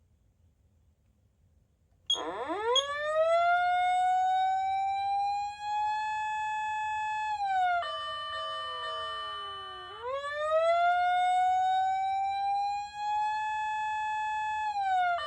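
Patlite SAP-500FBVZ electronic siren amplifier sounding a wail. After about two seconds of near silence, the tone starts low and rises slowly to a high held pitch. About eight seconds in it falls away with steady ringing tones layered over it, then it rises and holds again and falls once more near the end.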